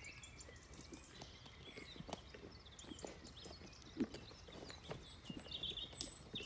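Horse's hooves thudding on soft, muddy ground as it canters on the lunge, in an uneven rhythm with one louder thud about four seconds in.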